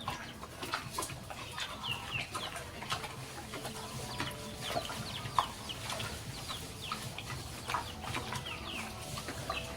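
Chickens clucking and chirping: many short, quick chirps scattered throughout, with occasional clicks in the background.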